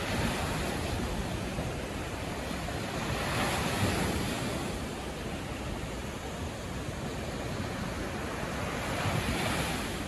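Sea surf breaking on a sandy beach: a steady wash of waves, swelling louder about four seconds in and again near the end as waves break.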